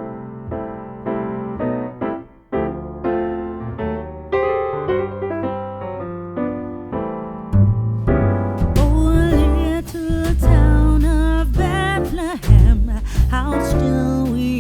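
Background music: a song that opens with piano chords, then bass and a singing voice come in about eight seconds in and the music gets louder.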